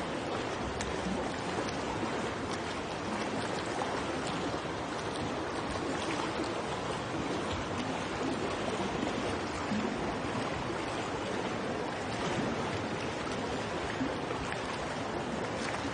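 Swimming pool water: a steady wash of water and soft splashing from swimmers doing lengths in an indoor pool.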